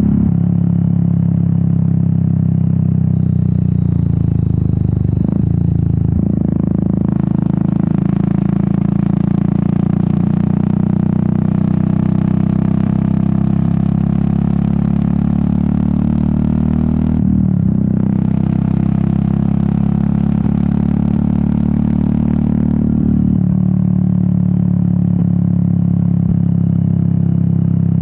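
Royal Enfield Meteor 350's single-cylinder engine and exhaust running on the move, its note breaking briefly twice, about five and seventeen seconds in, at gear changes. Between the breaks the engine note rises as it accelerates, with wind noise growing over it.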